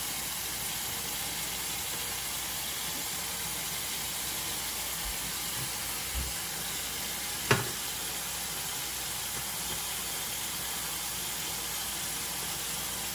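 Kitchen tap running a steady stream of water into a stainless steel sink, with one sharp click a little past halfway.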